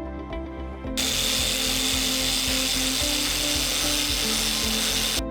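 Electric grinder cutting a guide line into the wooden edge of a door, a steady high whine with hiss that starts abruptly about a second in and cuts off just before the end. Background music plays under it.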